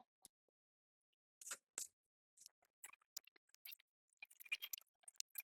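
Faint, scattered clicks and scrapes of small repair tools working on a smartphone, coming more often in the second half.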